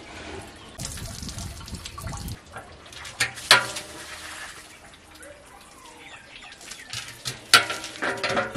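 Dye liquid splashing and running off wet silk skeins as they are lifted from a metal dye pot, then a few sharp metallic clanks as a large blackened metal pot is handled, the loudest about three and a half seconds in and again near the end.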